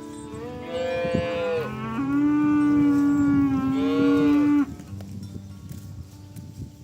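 Cow mooing twice: a short call about a second in, then a long, lower moo lasting about two and a half seconds.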